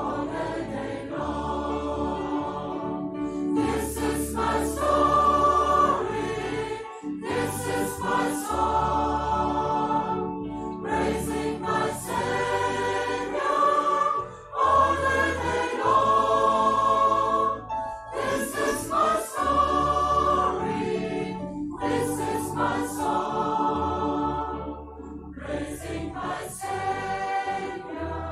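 Large mixed choir of men and women singing a hymn in sustained phrases, with short breaths between phrases.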